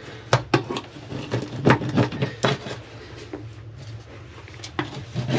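Hand scraper scraping and knocking on a plastic toilet flange in short, irregular strokes and clicks, trimming old residue off to leave a clean surface for the new gasket. A low steady hum runs underneath.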